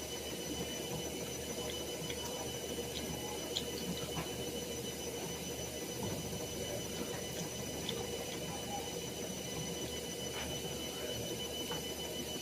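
Steady background hum with constant high whining tones, and a few faint short clicks now and then.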